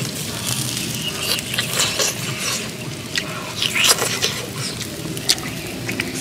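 Close-up eating sounds of grilled mouse meat being bitten and chewed: a run of sharp wet clicks and smacks with a few short squeaks.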